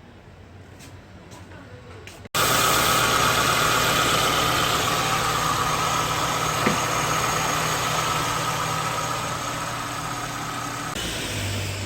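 Car engine running with the air-conditioning compressor working: a steady, loud mechanical running noise with a continuous whine over it, starting abruptly about two seconds in after a quieter stretch.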